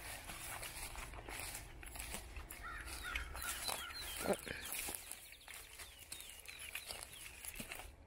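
Footsteps through brush and leaf litter, a run of irregular clicks and rustles. A bird gives short, downward-sliding chirps through the middle stretch and again near the end.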